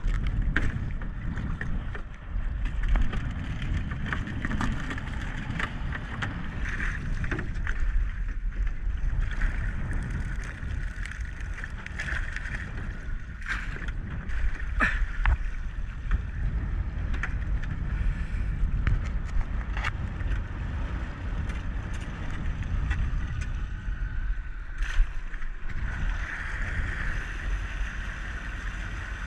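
Steady low rumble of water and wind around a small boat, with scattered sharp knocks and clicks as a crab drop net and its rope are hauled aboard and the catch is handled.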